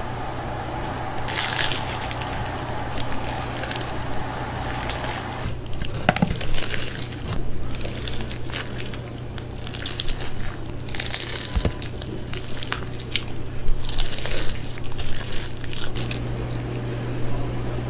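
Close-miked mukbang eating sounds: wet, squishy chewing and mouth noises with scattered short clicks, over a steady low hum.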